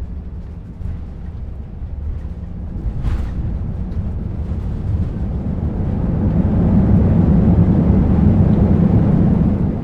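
Airbus A319 cabin noise during the descent to landing: a steady low rumble of engines and airflow, with a short hiss about three seconds in. The rumble swells in the second half and drops away sharply at the end.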